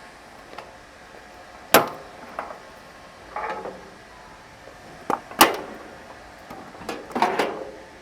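Sheet-metal enclosure panels and latches of a rotary screw air compressor being opened and handled: several sharp metallic knocks and clicks, the loudest about two seconds in and about five and a half seconds in, with short rattles between.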